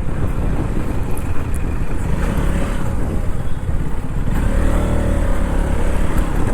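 Motorcycle engine running steadily while riding, under loud road and wind noise.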